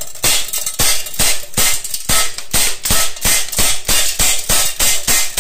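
Umarex Glock 19 CO2 BB pistol fired in a rapid string, about three shots a second, with the steel BBs striking a metal pellet trap behind a paper target.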